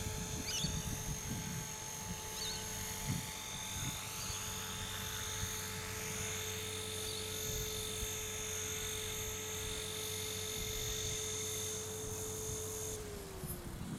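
Blade Fusion 360 RC helicopter with a 6S electric motor, running in flight: a steady high motor-and-gear whine over rotor wash. Near the end the whine's pitch falls and its high part cuts off as the motor slows.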